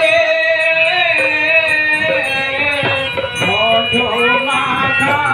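Hindu devotional kirtan music: a voice singing a chanting melody with instrumental accompaniment, including drum and rattling percussion.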